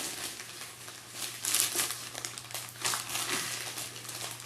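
Crinkling and rustling of a cardboard box and its taped packaging as it is cut and opened, in irregular bursts with short crackly strokes.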